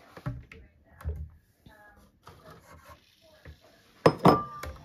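A ceramic bowl knocked and set down on a kitchen worktop: a loud sharp clink with a short ring about four seconds in, after a few soft knocks and rustles of eggshell being handled.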